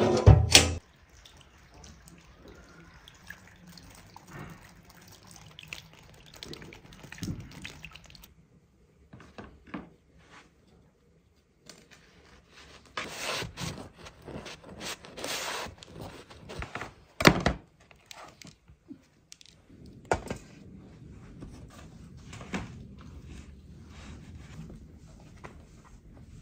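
Food-preparation handling sounds: a loud thunk at the start, then quiet handling with a few sharp knocks and clatters of utensils and dishes, one louder knock about two-thirds of the way through.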